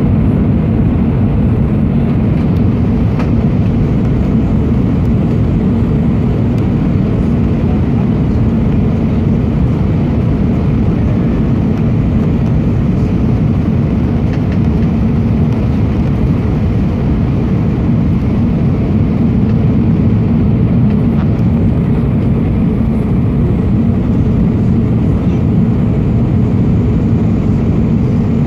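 Airbus A319 cabin noise during descent: a steady, loud, low rush of jet engines and airflow heard from a seat beside the wing, unchanging throughout.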